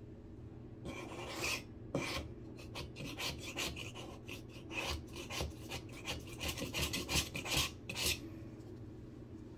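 Razor-blade scraper scraping over a dried white patch on drywall: a quick, irregular run of short scraping strokes that starts about a second in and stops about a second before the end.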